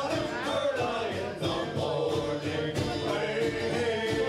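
Live folk band playing: voices singing over strummed acoustic guitars and a steady drum beat.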